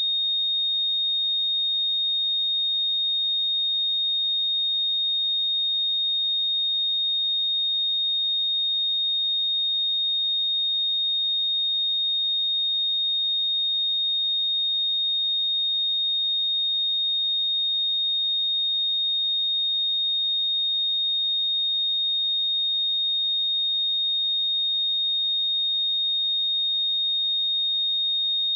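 A pure 3702 Hz sine-wave test tone: one steady high-pitched whistle-like tone held at a constant level, with no other sound.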